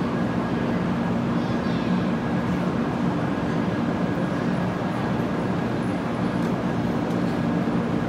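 Steady hum and whir of a stationary 500 Series Shinkansen's onboard equipment as it stands at the platform, with a constant low drone and a thin high whine.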